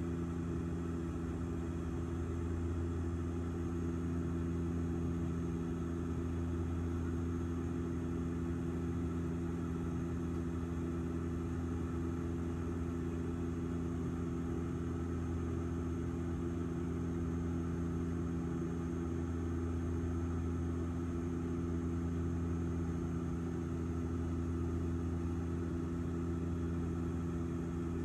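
Steady engine drone heard inside an airliner's cabin in flight, a deep even hum with several low tones held constant throughout.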